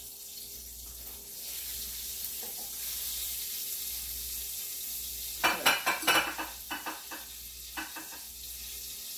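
Pork chops frying in a pan with a steady sizzle; about halfway through, a burst of utensil clatter against the pan, then a few lighter knocks as the chops are lifted out.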